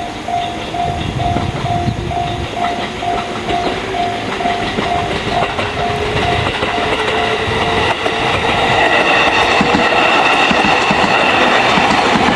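Japanese level-crossing alarm in the JR standard tone, ringing about twice a second and stopping about seven seconds in, while a JR Ryomo Line 211-series electric train runs through the crossing, its wheels clacking over the rails. The train noise grows louder over the last few seconds.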